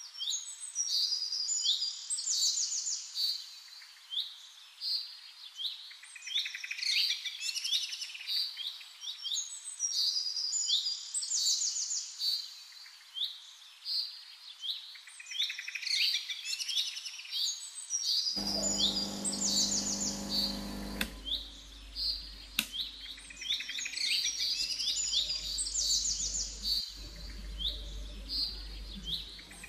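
Small songbirds chirping and twittering in quick, high phrases, over and over. About two-thirds of the way in, a low mechanical buzz starts, loudest for its first few seconds, then settles into a lower hum beneath the birds.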